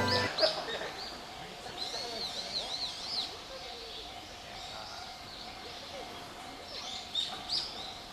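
Birds chirping outdoors: a quick run of short rising-and-falling chirps about two seconds in and another burst near the end, over faint steady outdoor background noise.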